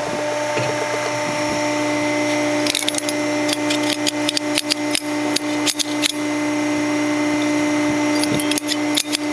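Steady hum of a servo press standing idle. Irregular light metal clicks and clinks sound over it, in the middle stretch and again near the end, as the formed metal part is taken off the die and handled.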